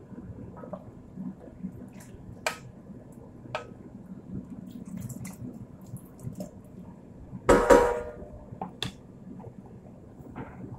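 Cookware being handled: scattered light clicks and knocks, then one louder ringing clatter of a pot or lid about seven and a half seconds in.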